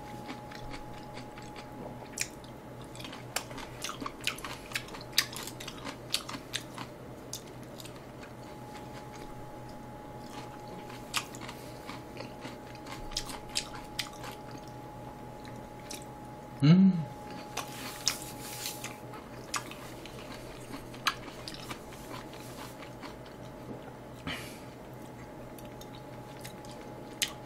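Close-up chewing and biting of battered fried pork in sweet-and-sour sauce (tangsuyuk), with many short crunchy clicks and mouth sounds. There is a faint steady tone underneath, and a short hum of the voice about two-thirds of the way through.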